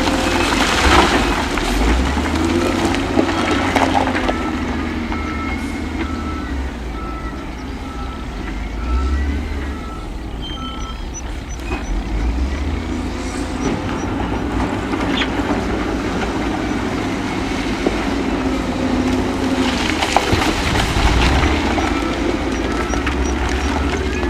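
Diesel engines of heavy earthmoving machines running steadily, with a few sharp clanks. A reversing alarm beeps at an even pace for several seconds near the middle and starts again near the end.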